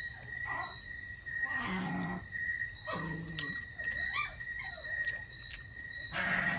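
Crickets chirping steadily in the background, a continuous high trill. Over it come several short low mouth and voice sounds from a person eating.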